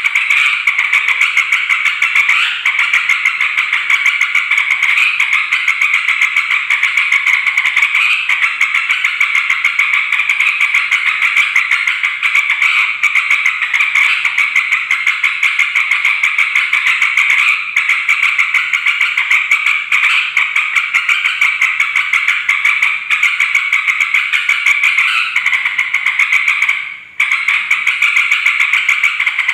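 Yellow-vented bulbuls (trucukan) chattering noisily, a dense, unbroken run of rapid calling notes, used as a lure call. The sound cuts out for an instant near the end.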